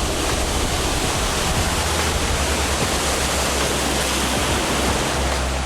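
Boat running across open water: a steady rush of spray and wind with a low, even engine hum beneath it.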